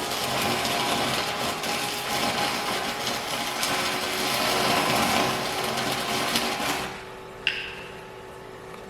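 Electric arc welding: a steady, dense crackle of the arc that stops about seven seconds in, followed by a single sharp click.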